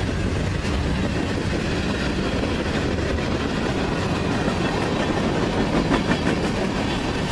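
Freight train cars, tank cars and covered hoppers, rolling past: a steady noise of steel wheels on the rails, with a cluster of clicks from the wheels over the rail joints about six seconds in.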